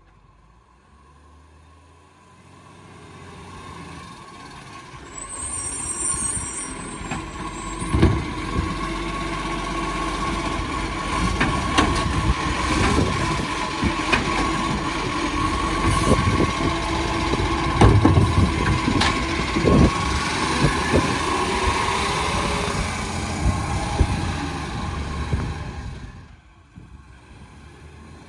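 Side-loader garbage truck stopping with a short air-brake hiss, then its engine revving to drive the hydraulic lifting arm as it grabs and tips a recycling wheelie bin. The bin and arm knock several times during the lift, and the revving drops away near the end.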